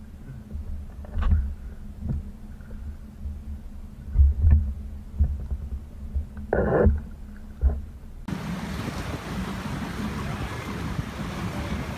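Low rumble of wind on the microphone, with a few knocks against a clear plastic canoe hull and a short burst about six and a half seconds in. About eight seconds in it changes to a steady rush of churning wake water and wind from a motorboat alongside.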